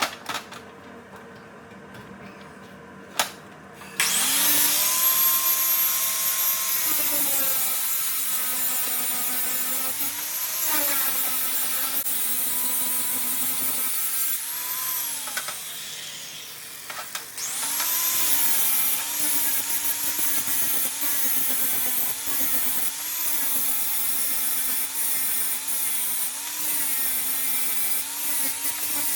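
Handheld electric power tool running on the truck's exhaust parts. It starts with a sharp knock about three seconds in, then runs at speed, its motor pitch dipping under load and recovering again and again, with a short lull past the middle.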